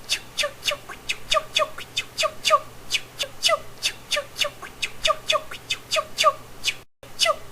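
Vocal sound effect made by mouth: a rapid, even string of short squawk-like chirps, mostly in pairs, about two to three a second. There is a brief break to silence near the end.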